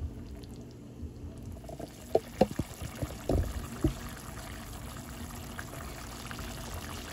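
A pot of beef tips simmering in broth, a steady bubbling. A few sharp knocks and clinks come about two to four seconds in.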